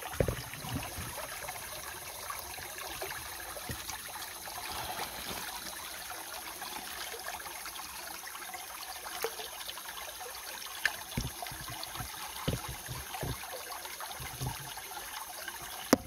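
Shallow stream water trickling steadily, with scattered small knocks and one sharp click near the end.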